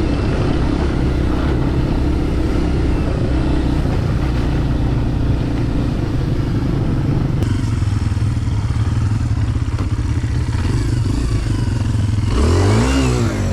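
Dirt bike engine running steadily at low speed, with a brief rev that rises and falls in pitch near the end.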